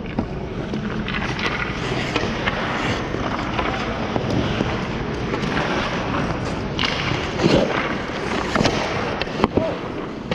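Ice-skate blades scraping and carving on rink ice, with scattered sharp clacks of hockey sticks and pucks, several close together about seven to nine seconds in.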